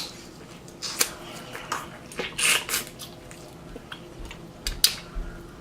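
Eating and food-handling noises close to the microphone: a few sharp clicks and short rustling scrapes as food and tableware are handled, with quiet gaps between.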